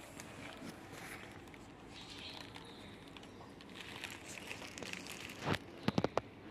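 Faint rustling and handling noise, with a louder rustle and a few sharp taps near the end.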